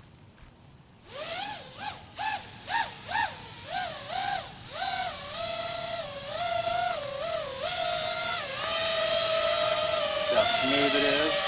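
FPV racing quadcopter's brushless motors and propellers (iFlight XING 2207 1800kv on 6S) spinning up about a second in, the throttle blipped in a run of short rising-and-falling whines about two a second. The whine then holds in a hover, stepping up and down in pitch, and settles steadier and louder near the end.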